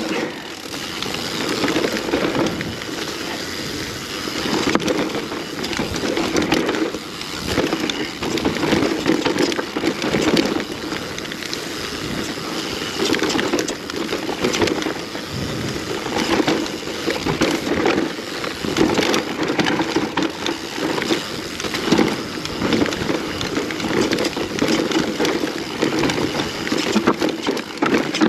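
Mountain bike riding down a rough, rocky and rooty trail: tyres rolling and crunching over dirt and stones, with frequent knocks and rattles as the bike hits bumps.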